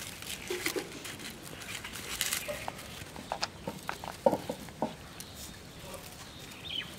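Light crackling and rustling of charred, string-tied leaf parcels being handled and untied, with scattered small clicks. A short animal call is heard about four seconds in.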